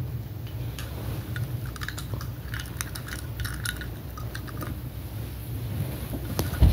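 Close handling noise of toy packaging: irregular small clicks and crinkles of plastic and cardboard over a low steady rumble, with one louder knock near the end.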